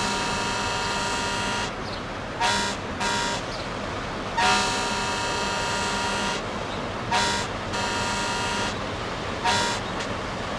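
Ship's horn sounding a series of blasts: a long blast of nearly two seconds at the start, a short one, another long one of about two seconds near the middle, then two short ones, over a steady rushing background.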